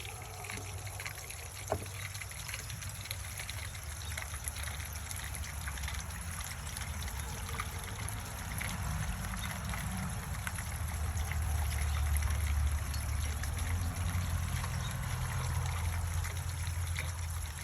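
Water trickling and splashing down a JAS3000BLK rain chain, with scattered small drips and one sharp tick about two seconds in. A low rumble underneath grows stronger in the second half.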